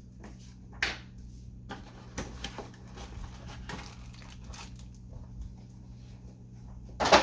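Cardboard packaging being handled: soft rustles and scrapes as a cardboard insert is lifted out of a box, with a short sharp noise just under a second in and a louder brief rustle near the end.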